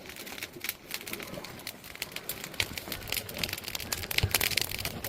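Burning firewood crackling and popping in quick, irregular snaps, which come thicker and louder from about two and a half seconds in.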